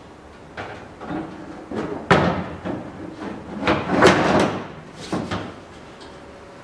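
Long aluminium capping strip clattering and knocking against the aluminium rear body tub of a Land Rover Series III as it is laid along the top edge and shifted into position. A run of irregular metallic knocks, loudest about two seconds in, with a cluster around four seconds in, stopping about a second before the end.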